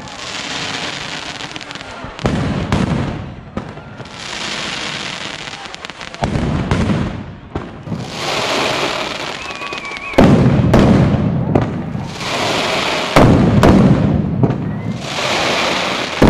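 Mascletà firecrackers: strings of firecrackers bursting in a continuous rapid crackle that swells in surges. Heavier, louder bangs set in abruptly about ten seconds in and again about thirteen seconds in.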